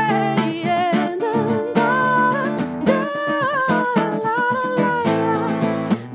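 Live acoustic guitar, fingerpicked, under a woman's voice singing a wordless, hummed melody with long held and sliding notes.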